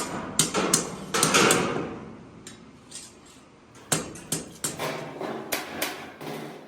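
Irregular hammer blows and knocks on metal: a run of strikes in the first second and a half, a lull, then another cluster of strikes from about four seconds in.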